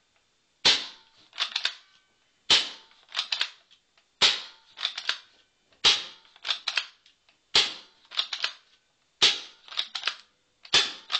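JT ER2 pump-action paintball pistol firing reballs: seven sharp shots about 1.7 seconds apart. Each shot is followed by a quick pair of mechanical clacks from the pump being worked to cycle the next ball.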